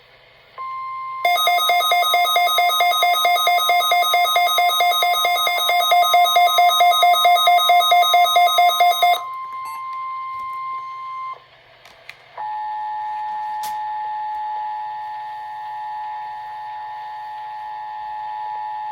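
Emergency alert tones on a weather radio. A steady single-pitch alert tone sounds with a rapid electronic alarm beeping over it, about five beeps a second, for roughly eight seconds. The tone stops, a few clicks follow, and about twelve seconds in the two-tone Emergency Alert System attention signal starts and holds steady.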